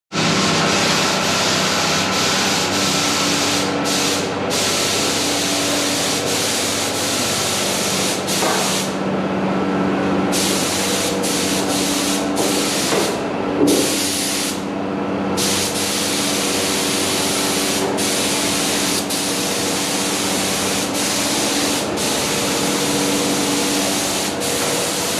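Paint spray gun hissing steadily while a compressor or motor hums underneath. The hiss briefly cuts out several times as the trigger is released between passes.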